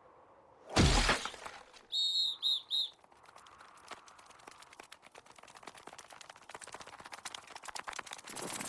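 Cartoon sound effects: a carrot dropping into snow gives one short heavy thump about a second in. Then come three short high chirps from the ants, and a long run of faint rapid ticks from their scurrying feet, growing busier near the end.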